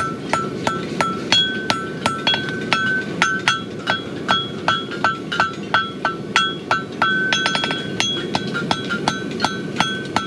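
Farrier's hammer forging a red-hot steel horseshoe on an anvil: steady blows about three a second, each with a bright ringing note from the anvil, and a quick run of light taps about eight seconds in.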